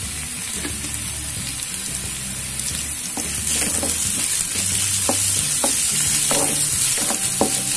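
Sliced onions, green chillies and dals sizzling steadily in hot oil in a wide pan during the tempering stage, while a wooden spatula stirs in turmeric with several short scraping strokes in the second half. The sizzle grows louder about three seconds in.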